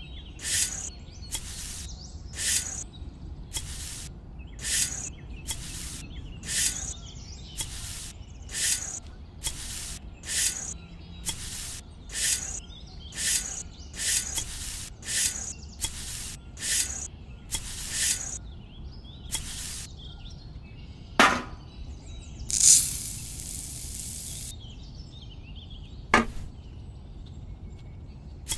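Miniature shovel scooping dry sand, a short crisp scrape about once a second. Near the end a sharp click, then sand poured out with a hiss for about a second and a half, and another click.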